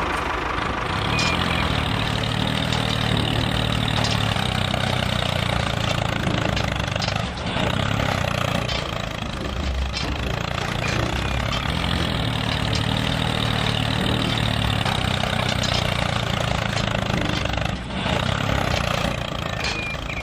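Tractor engine running steadily at a constant, idle-like speed.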